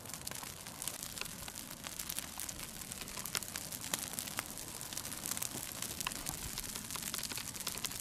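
Dry grass and shrubs burning in a brush fire, crackling with many sharp, irregular pops over a steady hiss.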